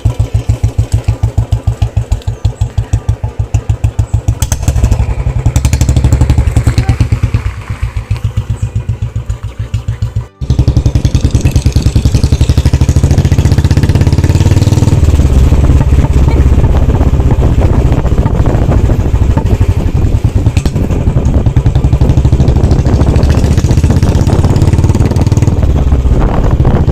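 Motorcycle engine running under way, a rapid even firing pulse throughout, with a brief break about ten seconds in.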